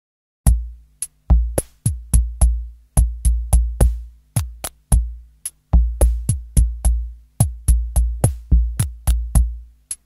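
Background music: a drum-machine beat of deep bass-drum hits that ring on, topped with crisp high clicks, starting about half a second in.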